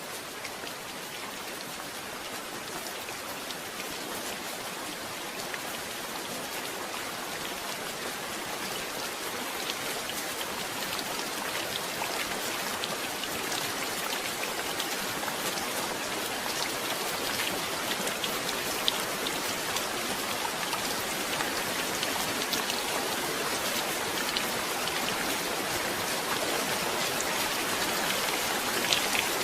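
Steady rain falling, a dense hiss with many fine drop impacts, growing gradually heavier.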